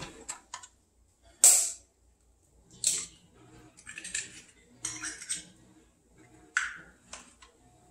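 Eggs cracked on the rim of a ceramic bowl and a fork clinking against the bowl as it beats them: a handful of sharp knocks and clicks at uneven intervals.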